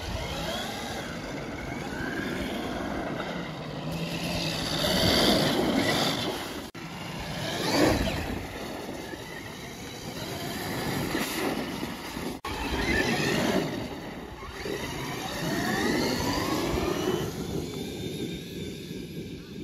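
Traxxas X-Maxx RC monster truck's brushless electric motor whining as the truck is driven over snowy ground. The whine rises and falls in pitch several times as it speeds up and slows down.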